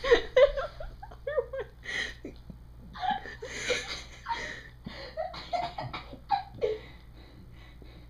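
Girls laughing hard in a string of short bursts, dying away about seven seconds in.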